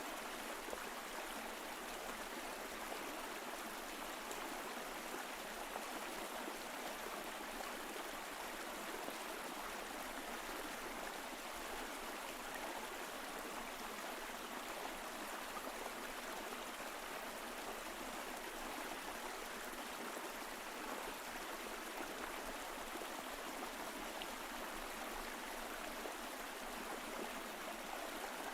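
Mountain stream flowing steadily: an even, unbroken rush of water.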